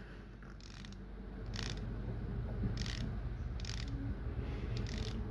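Seiko Sumo dive watch's unidirectional bezel being turned, a run of small metallic ratchet clicks with a few quicker clusters. The click is clean and metallic, nearly perfect, but lacks volume.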